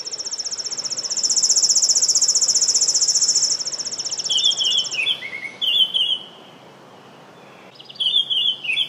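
A fast, high, buzzing insect trill for about the first five seconds, then a songbird singing a short phrase of clear notes that falls in pitch, sung again near the end, over a faint even outdoor hiss.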